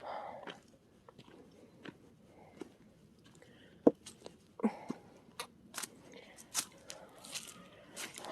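An animal crunching dry food: scattered short, crisp crunches and clicks, the sharpest about four seconds in.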